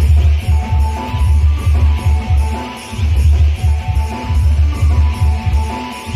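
Loud music for a Dhimsa dance: a fast, heavy, pounding bass beat under a high, steady melodic line.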